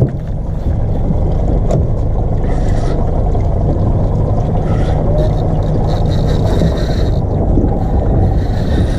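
115 hp outboard motor running at low speed with a steady low rumble while the boat is manoeuvred.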